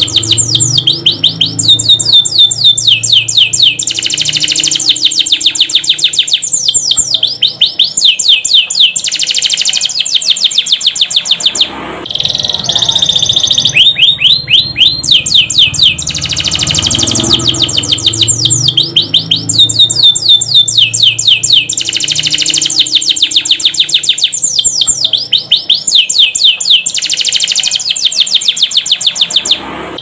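Domestic canary singing a loud, continuous song of fast rolling trills: runs of rapid repeated high notes, each a quick downward sweep, changing to a new trill every second or so, with a brief pause about twelve seconds in.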